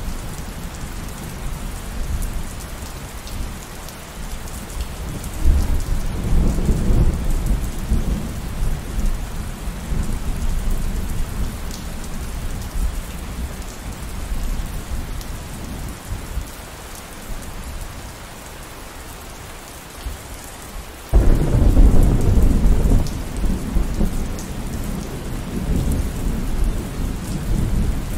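Steady rain falling, with two rolls of thunder: a low rumble that swells about six seconds in and fades over several seconds, then a louder clap that breaks in suddenly about three-quarters of the way through and rumbles on.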